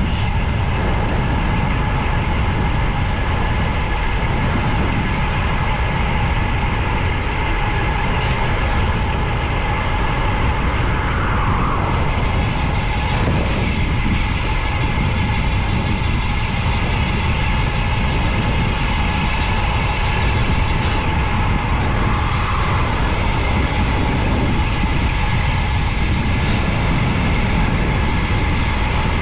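Wind rushing over the microphone on a road bicycle descending fast: a loud, steady rush with a constant whining tone above it.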